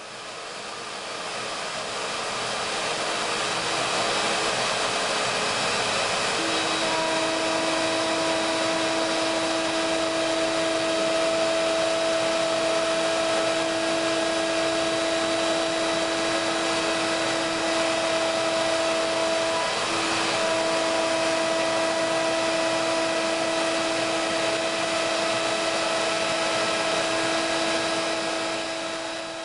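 CNC router spindle cutting HDPE plastic with its dust-extraction vacuum running: a steady whirring rush that fades in over the first few seconds. A steady hum tone joins about six seconds in and drops out briefly about two-thirds of the way through.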